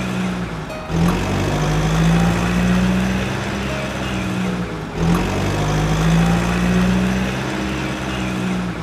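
Truck engine idling, dubbed over the footage as a sound effect: a steady low hum that breaks off and starts again with a small jump about every four seconds, as a loop repeats.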